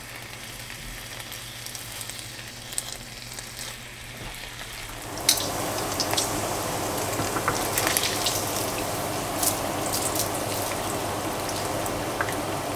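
Bacon frying in a nonstick skillet: a steady sizzle with dense crackling and popping of the fat. The sizzle jumps louder about five seconds in.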